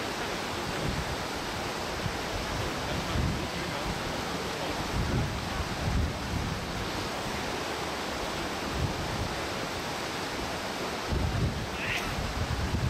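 Shallow stream running over stones, a steady rush of flowing water, with wind buffeting the microphone now and then as low rumbles. A brief faint chirp sounds near the end.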